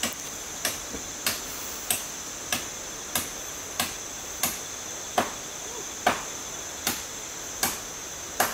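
A hand tool, such as a hoe or pick, striking stony ground again and again in a steady rhythm, about three strokes every two seconds. A steady high-pitched buzz runs underneath.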